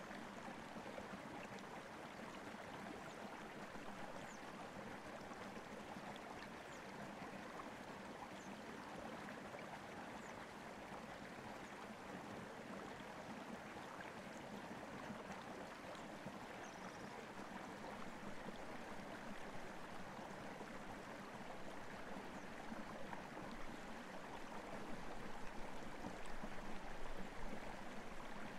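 Soft, steady scratchy rustle of a small paintbrush dabbing acrylic paint onto a stretched canvas, a little louder and more uneven near the end.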